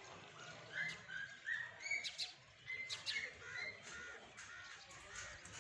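Small birds chirping outdoors: a string of short, high notes and sharp chirps, several a second.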